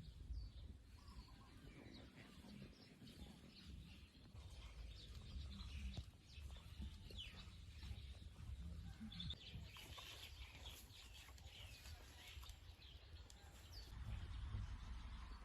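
Faint outdoor ambience: scattered bird chirps over a steady low rumble.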